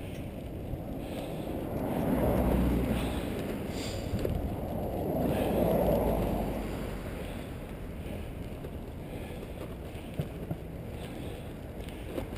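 Bicycle rolling along a paved path with wind rushing over the microphone, a steady low rumble that swells louder twice, about two and about six seconds in. A few light clicks near the end.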